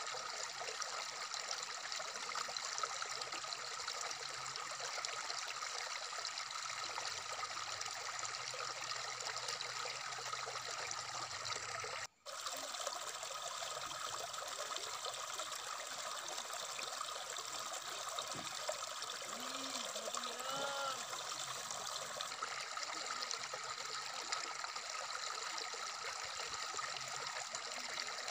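Shallow stream flowing steadily over rocks, a continuous trickling of water. The sound drops out for an instant about twelve seconds in.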